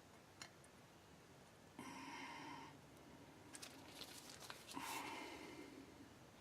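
Quiet workshop near silence broken by a few light clicks and two short breathy hisses, one about two seconds in and one about five seconds in.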